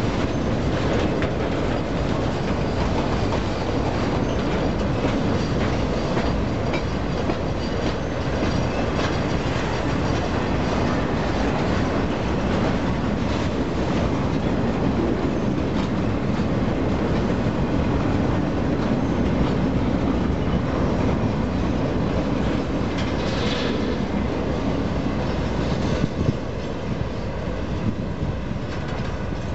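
Freight boxcars rolling past close by: a steady rumble of steel wheels on the rails, with a brief high squeal about 23 seconds in and a few sharp clacks near the end, easing off slightly as the last car goes by.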